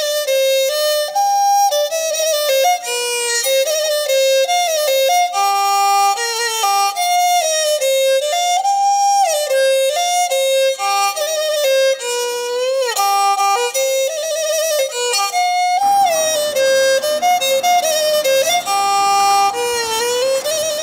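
Background music led by a single melody line with sliding notes. A fuller, lower background layer joins about sixteen seconds in.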